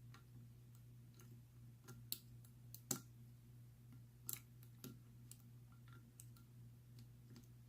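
Faint, irregular metal clicks of a lock pick working the pin tumblers of a Sesamee 937 round-body padlock under light tension, one click about three seconds in standing out from the rest. A low steady hum runs underneath.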